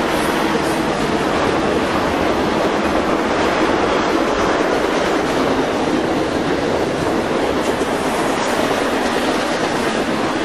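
Trailer-on-flatcar cars of a BNSF intermodal freight train rolling past, a steady loud rumble of steel wheels on rail.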